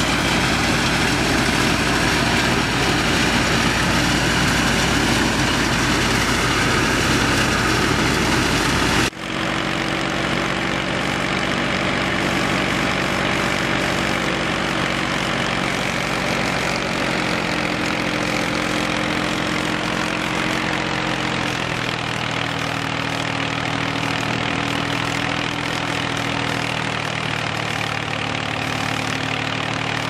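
Tractor-driven wheat thresher running steadily while sheaves of wheat are fed into it, over the drone of the Massey Ferguson tractor's engine powering it. About nine seconds in, the sound changes abruptly from a dense rushing noise to a steadier hum with clear engine tones.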